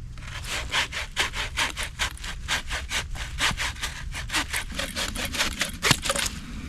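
The saw blade of a hatchet-and-saw combination tool cutting through a thick fallen branch. It goes in rapid, even back-and-forth strokes that stop shortly before the end.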